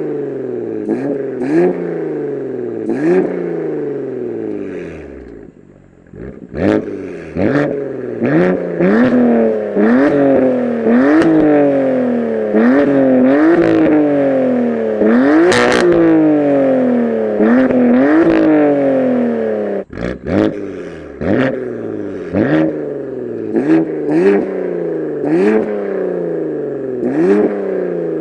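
BMW M2 Competition's S55 twin-turbo straight-six revving repeatedly while stationary through an equal-length valved sport exhaust and OEM downpipes. Each blip rises quickly and falls away, about one a second. The revs stop briefly about six seconds in, and the blips come longer and faster in the middle.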